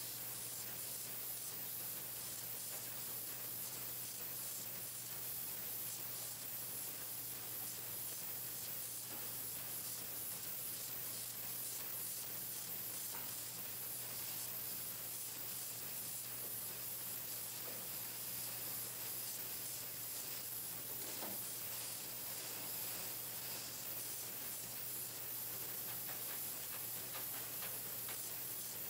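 Pencil painting machine running: a steady low hum under a constant hiss, with a few faint ticks.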